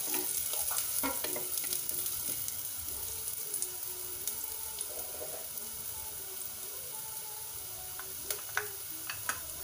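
Chopped onion and garlic sizzling in hot oil in a stainless steel pot, with a wooden spatula scraping and tapping against the pot for the first second or so. A few sharp clicks sound near the end over the steady sizzle.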